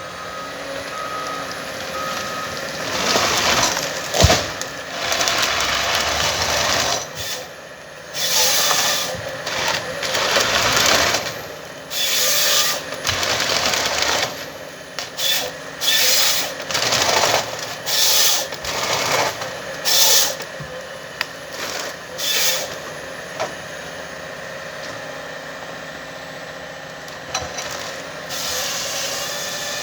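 Komatsu 931 XC harvester working with its C144 head: the machine runs steadily, with a sharp knock about four seconds in and then a run of short, loud hissing bursts, before settling back to steady running near the end.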